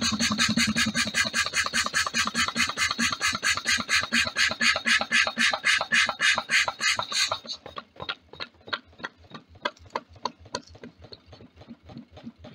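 Homemade alpha-type Stirling engine running fast, chuffing rhythmically about six times a second as its flywheel spins. About seven and a half seconds in, the loud hissy part of each chuff stops abruptly, leaving fainter beats at much the same pace.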